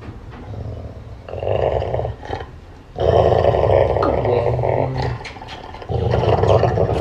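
Golden retriever growling in three long stretches, the middle one the longest, at nearly three seconds.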